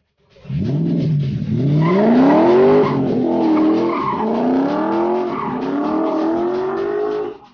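A drift car's engine revving hard in a run of about five rising sweeps, with tyres squealing as it slides. It starts abruptly about half a second in.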